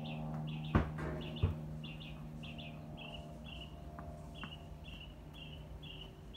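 A bird repeating one short chirp over and over, about twice a second, over a steady low hum. About a second in come two sharp knocks, well under a second apart, the loudest sounds here.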